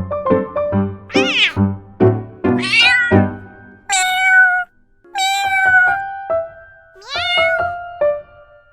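A cat meowing several times, long drawn-out meows that glide up and down in pitch, over background music.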